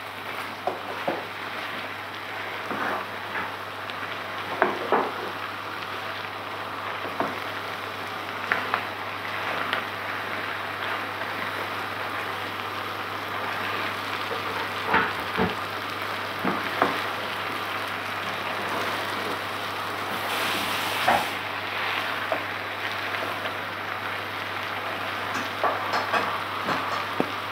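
Chopped courgettes sizzling in a non-stick pan over high heat, stirred now and then with a spatula that scrapes and knocks against the pan in short clicks.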